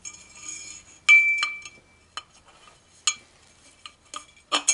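Metal clinks and knocks as a hybrid rocket motor's bulkhead assembly is slid into the 54 mm motor case. The loudest is a sharp ringing clink about a second in, followed by a few lighter knocks at uneven intervals.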